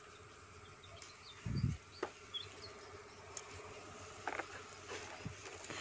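A flying insect buzzing steadily close to the microphone, with a dull thump about one and a half seconds in and a few small clicks from the chili plants being handled.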